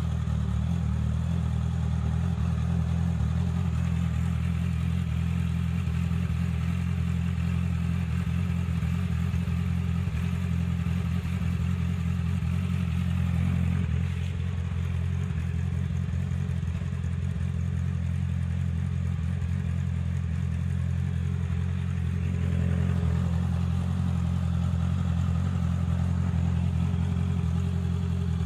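Honda CBR650F's inline-four engine idling steadily through an Akrapovic exhaust.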